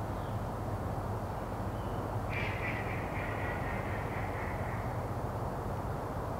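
A harsh, drawn-out call from a distant bird starts about two seconds in and fades away over a couple of seconds, over a steady low background rumble.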